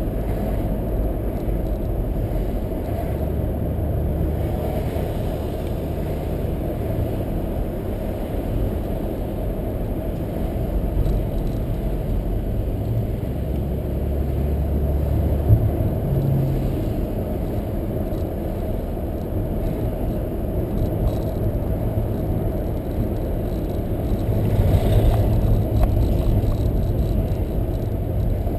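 Steady low rumble of engine and tyre road noise heard from inside a car being driven, with one brief knock a little past halfway and a slight rise in level near the end.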